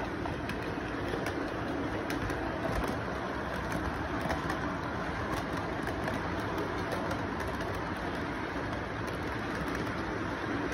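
Model train cars rolling along the track: a steady rumble of wheels on rail with scattered light clicks.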